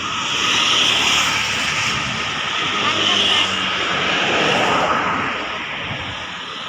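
Road traffic passing close by: a steady rush of engines and tyres, easing off after about five seconds.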